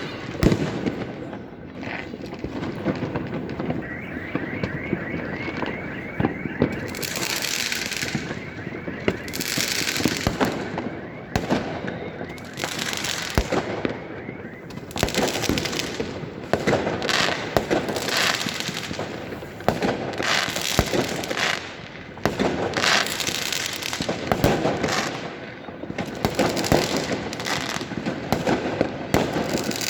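Many fireworks and firecrackers going off at once: a continuous barrage of bangs and crackling. A fast-pulsing high tone runs through it for several seconds, starting about four seconds in.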